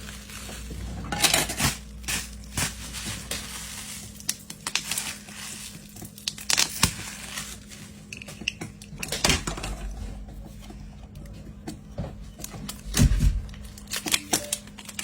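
Small tools and parts clicking, tapping and scraping in irregular bursts during hands-on phone repair work, over a steady low hum. The loudest knock comes about two-thirds of the way through.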